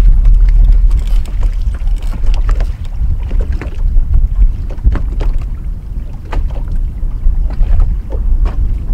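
Strong wind buffeting the microphone on an open boat, with irregular short slaps of choppy water against the hull.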